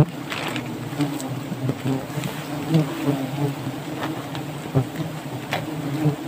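Wasps buzzing in a steady, wavering drone around their nest. Scattered knocks and rustles of brush and handling close to the microphone come through it.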